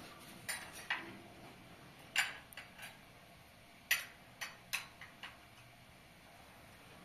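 A series of short, sharp clicks and knocks of hard objects at irregular spacing, about ten in all, the loudest a little after two seconds and just before four seconds in.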